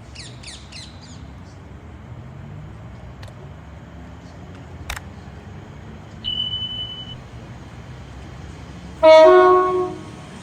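Train horn sounding one short two-tone blast, a low note stepping up to a higher one, about nine seconds in, over a steady low rumble.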